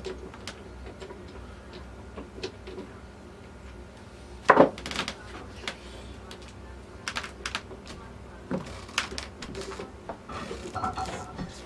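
Steel T96 transmission overdrive parts clicking and knocking against each other as they are handled and fitted together by hand, with one loud knock about four and a half seconds in.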